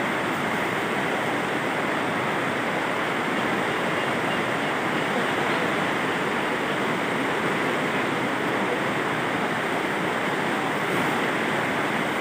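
A steady, even rushing noise with no distinct sounds in it, unchanging throughout.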